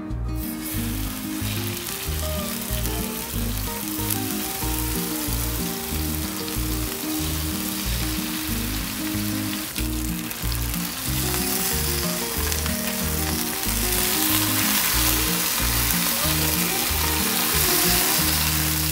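Chicken breast fillets sizzling as they fry in hot oil in a nonstick pan; the sizzle starts about half a second in, when the meat goes into the pan, and grows a little stronger in the second half. Background music with a steady beat plays underneath.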